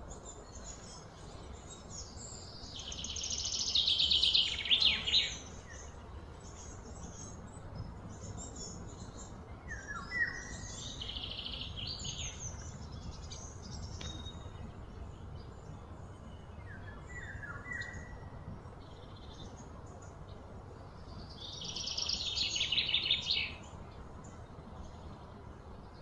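Outdoor wildlife calls: a loud, high buzzing trill swells for a few seconds and stops sharply, twice, with a few short chirps in between.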